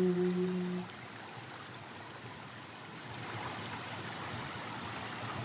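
A held sung note ends about a second in, leaving the steady rush of flowing creek water, which grows a little louder about three seconds in.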